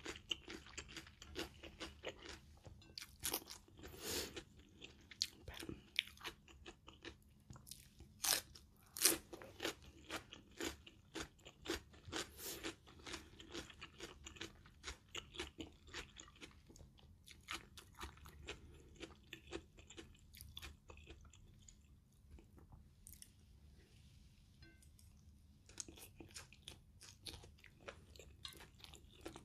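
Close-up chewing of stir-fried minced pork with Thai basil and rice, with wet mouth clicks and smacks. A metal spoon and fork now and then clink and scrape on the plate. It goes quieter for a few seconds past the middle.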